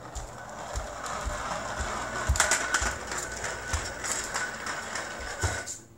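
A 3D-printed plastic mousetrap car rolling across a hard floor, its wheels and frame rattling steadily with many irregular clicks and a few low thumps. The sound stops shortly before the end.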